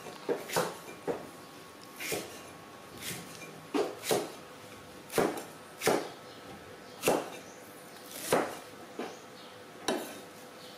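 Hard plastic toy dump truck clattering and scraping on a concrete floor as a baby monkey pushes it and climbs onto it: a string of irregular sharp knocks, about one a second.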